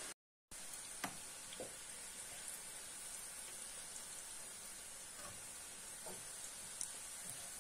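Onion patties sizzling in hot oil in a frying pan, a steady hiss that cuts out for a moment just after the start. A few light clicks and scrapes come from the fork and spatula against the pan as the patties are lifted out.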